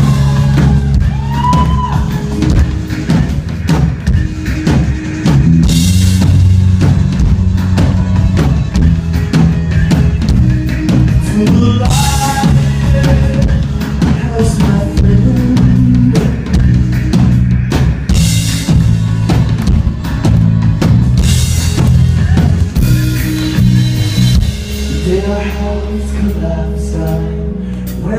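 Live band playing an instrumental intro through a loud concert sound system: a drum kit with heavy bass drum, deep bass notes and cymbal crashes every few seconds.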